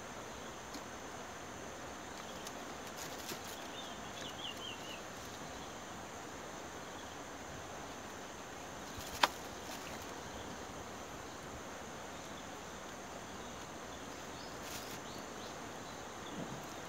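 Steady high-pitched insect drone over a hiss of outdoor background, with a short run of quick bird chirps about four seconds in and one sharp click about nine seconds in.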